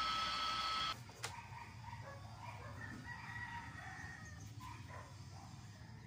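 A handheld gas torch on a yellow fuel cylinder hisses steadily with a faint whistling tone while heating the rubber door gasket, then is shut off about a second in, followed by a single click. After that only a faint wavering call is heard in the background.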